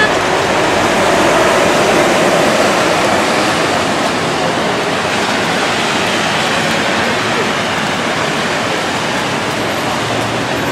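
Heavy rain falling steadily: a loud, dense, even hiss of a downpour.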